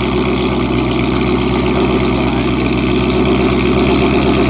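Ford Mustang GT's 5.0 Coyote V8, running on E85, idling steadily after a cold start through a Corsa Extreme cat-back exhaust.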